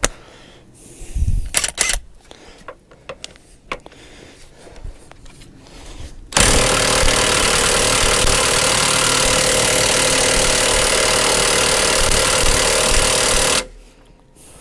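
Cordless impact wrench hammering steadily for about seven seconds on a seized, rusted bolt, then stopping abruptly; the bolt does not break loose. Before that come a few clicks and knocks as the socket is fitted and set on the bolt.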